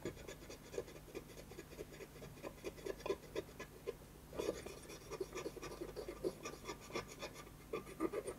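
Alcohol-soaked cotton swab scrubbing flux residue off the bare chip pads of a circuit board: faint, quick, irregular scratchy rubbing strokes, thinning out briefly about four seconds in.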